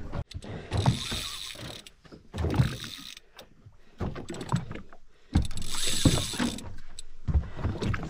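Spinning reel's drag buzzing as a hooked fish pulls line off, once about a second in and again after five seconds, with the rod under heavy bend.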